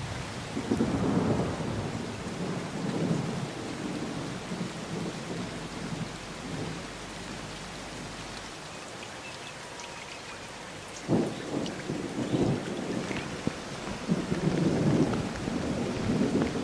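Steady rain falling, with low rumbles that swell and fade; one rumble starts sharply about eleven seconds in.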